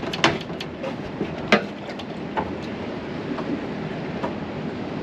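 Steady noise of a fishing boat at sea, with a few sharp knocks on board, the loudest two about a quarter second and a second and a half in.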